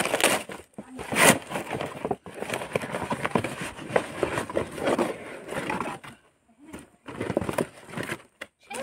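Cardboard parcel packaging being torn open and handled: a dense run of crackling, rustling and scraping, with a loud rip about a second in and a short lull around six seconds.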